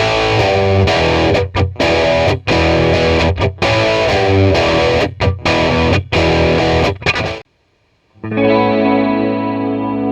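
Eko DV-10 electric guitar played through a Vox Cambridge 50 amp with distortion: a choppy hard-rock chord riff with sharp stops that cuts off after about seven seconds. After a short silence, a single cleaner chord rings out and slowly fades.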